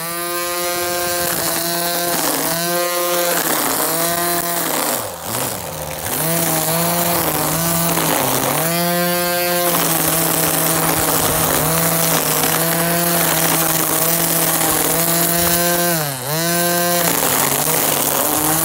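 String trimmer (weed eater) motor running steadily at high speed, its pitch sagging briefly twice, about five and sixteen seconds in.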